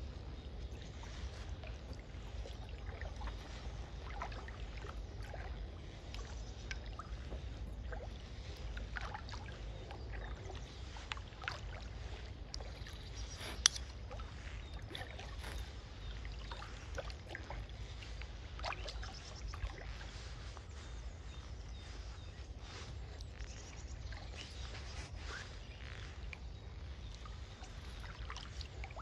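Kayak being paddled gently on calm water: soft paddle dips and drips, with scattered small knocks and one sharp click about halfway through, over a low steady rumble.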